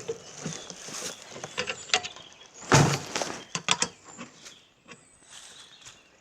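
Irregular knocks and clicks of equipment being handled, with one louder thump about three seconds in followed by a quick run of clicks.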